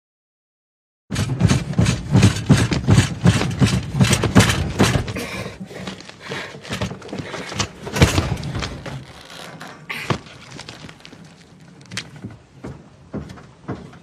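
Rapid, hard knocking and rattling, many hits a second, from someone handcuffed inside a vehicle wrenching at the cuffs. The hits are loud and close together for about four seconds after a silent start, then come fewer and fainter, with a few single sharp knocks near the end.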